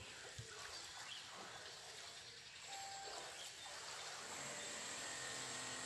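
Faint outdoor background noise, with a thin steady high tone joining about three seconds in.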